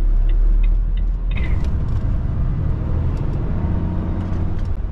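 Heavy lorry's diesel engine pulling away, heard from inside the cab: a steady deep rumble, strongest in the first second.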